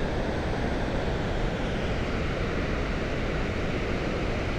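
Steady rush of a mountain waterfall and stream, an even unbroken noise.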